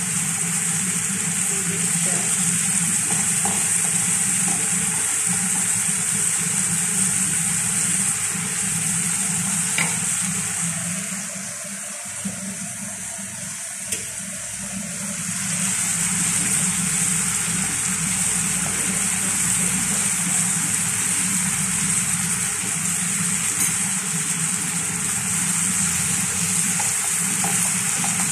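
Shrimp and bell pepper strips sizzling in a frying pan as they are stirred with a wooden spoon: a steady frying hiss. It goes quieter for a few seconds in the middle, when a couple of light knocks are heard.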